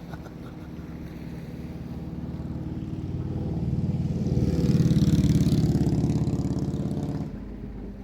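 A motor vehicle's engine running close by, growing louder to a peak about five seconds in and then cutting off suddenly shortly before the end.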